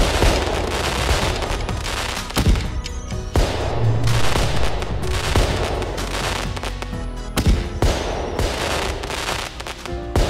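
Fireworks: a dense barrage of crackling and bangs, several sharp booms standing out, with music underneath.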